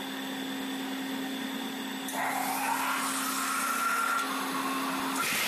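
CNC metal spinning machine running, its spindle turning a metal lampshade blank with a steady hum. About two seconds in, a louder hiss with a faint whine slowly rising in pitch joins, as the forming roller works the spinning metal, with a brief louder burst near the end.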